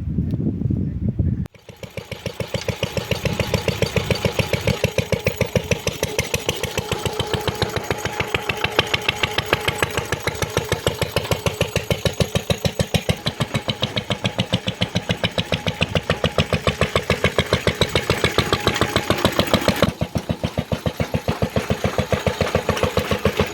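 Small engine of a homemade narrow-gauge locomotive running with a fast, even chugging beat. It follows a short low rumble that cuts off about a second and a half in.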